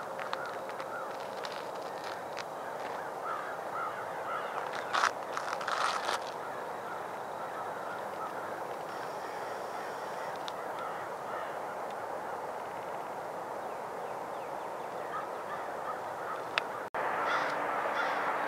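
A flock of waterbirds calling over a river: a dense, continuous chorus of short honking and cawing calls, with a few short knocks about five seconds in. Near the end the calling jumps louder and closer, from a flock of gulls flying over the water.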